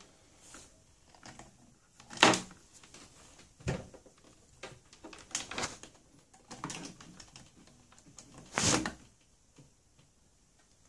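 Multimeter test probes and their leads being handled on a wooden desk: scattered light clicks, taps and rustles, with a sharper knock about two seconds in and a louder rustle about nine seconds in.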